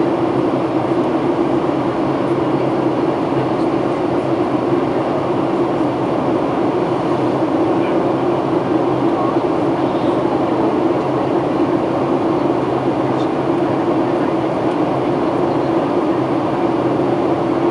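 Steady cabin noise inside a Boeing 737-800 during its descent: a constant drone of the CFM56 jet engines and rushing airflow past the fuselage, with a low hum.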